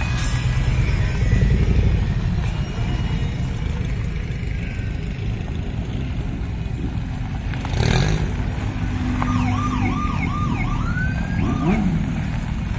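Motorcycle trikes, a Harley-Davidson among them, rumbling past one after another at low speed. A short sharp burst of noise about eight seconds in is followed by a warbling, siren-like tone for a few seconds near the end.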